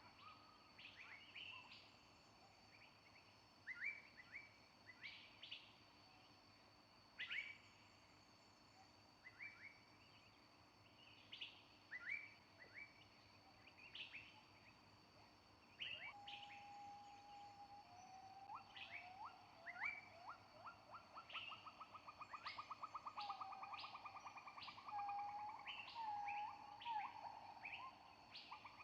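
Faint birdsong from several birds: many short, quick chirps throughout. In the second half there is a held whistled note and a fast trill.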